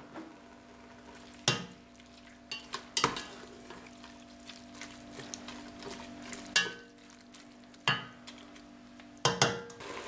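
A spoon stirring leaf spinach simmering in cream in an enamel pot, knocking against the pot now and then, over a steady low hum.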